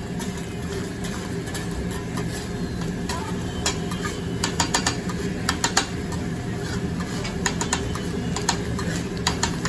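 Metal spatulas clicking and scraping on a hibachi griddle, with scattered sharp taps that come thicker from about a third of the way in, over a steady low hum.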